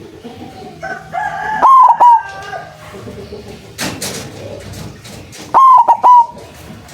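A white zebra dove (perkutut) sings its loud cooing call twice, each time a short run of clipped notes that dip sharply in pitch, about two seconds in and again near the end. A longer crowing call, like a rooster's, runs under the first song.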